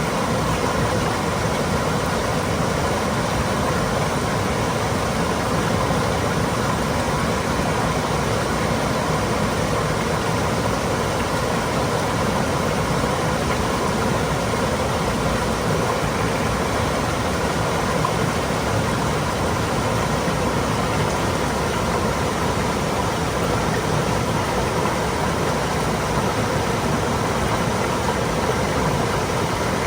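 Mountain stream flowing over rocks, a steady, continuous water sound with no change in level.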